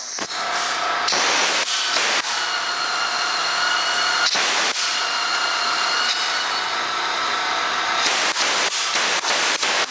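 Pneumatic pull-type rivet gun hissing compressed air, with a faint steady whistle, and several short louder blasts of air about one, two, four and a half, and eight to nine and a half seconds in.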